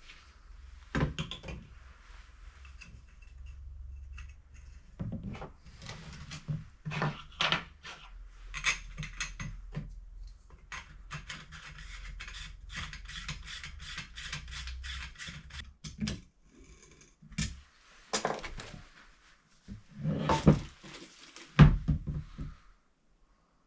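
Irregular clinks, taps and knocks of tools and fittings being handled during basin installation work, with a few louder thuds near the end.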